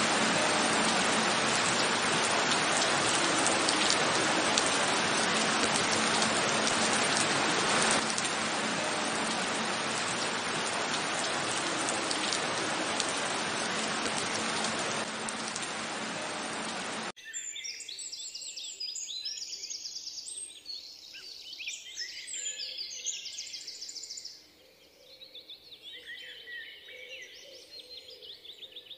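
A heavy downpour of rain, a steady dense hiss. About two-thirds of the way through it cuts off abruptly and gives way to small birds chirping and singing, much quieter.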